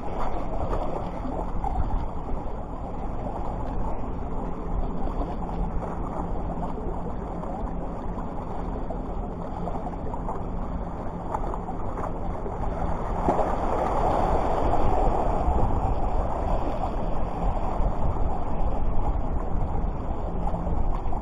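Wind rushing over the microphone with the wash of surf, a steady noise that grows louder a little past halfway.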